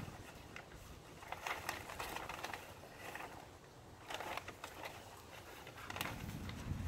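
Faint rustling and crinkling with scattered light clicks as weed-barrier landscape fabric is handled, with a low rumble near the end.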